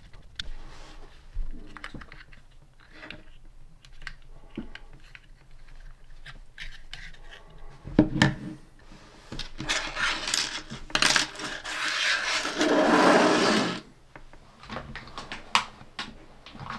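Light clicks and small clatters of a plastic 3D-printer print head housing and its screws being handled and fitted together, with a sharp knock about eight seconds in. Then come several seconds of rubbing and scraping that get louder until they stop, followed by a few more light clicks.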